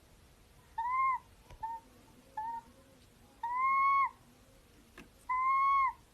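An owl calling: five clear whistled calls, two short and three longer, each rising slightly and falling away.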